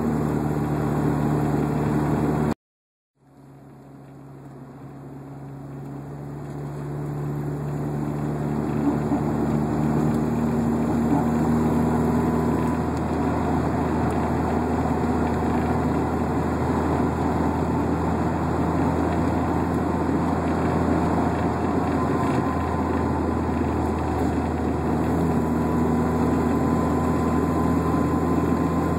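1996 Volkswagen Jetta Mk3's 2.0 four-cylinder running steadily, in which the owner hears a rubbing noise he can't place, seemingly from near the centre of the car. The sound cuts out briefly about three seconds in, then builds back up over several seconds.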